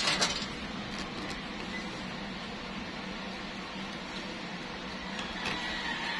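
Fingers rubbing and pressing a Spanish bull leather wrap onto a pool cue butt, with a short scrape right at the start and a few faint ticks, over a steady low hum.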